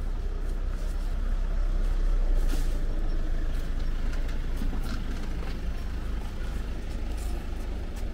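Road traffic rumbling close by, with two short hisses, one about two and a half seconds in and one near the end.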